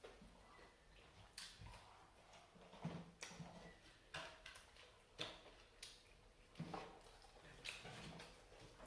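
Faint, irregular eating sounds: soft clicks and smacks of chewing and of eating rice by hand, about one a second.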